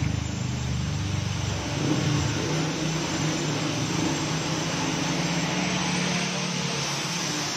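A vehicle engine running steadily, with an even hiss over a low hum.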